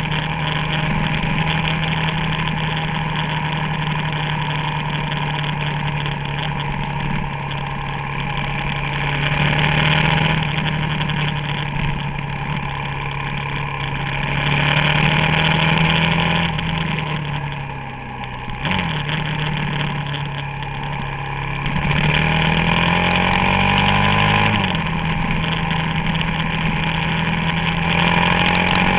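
Suzuki DR-Z400SM's single-cylinder four-stroke engine running while the bike is ridden, mostly holding a steady pitch. It eases off and quietens briefly a little past halfway, then climbs in pitch and drops back suddenly about three-quarters of the way through.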